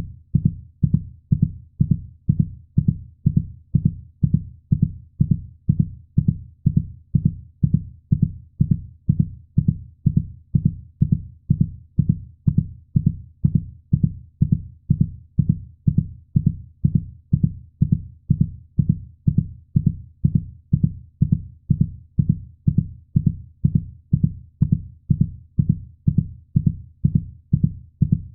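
Heartbeat sound: low thumps repeating evenly, about two a second, without a break.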